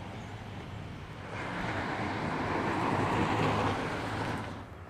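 A vehicle passing, its noise swelling to a peak and then fading over a few seconds, over a steady low hum.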